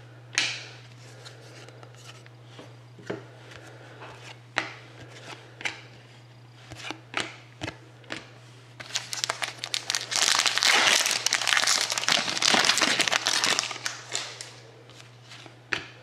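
A 2013-14 Upper Deck SP Game Used hockey card pack's wrapper torn open and crinkled for several seconds, starting about halfway through. Before that, scattered light taps and flicks of cardboard cards and packs being handled.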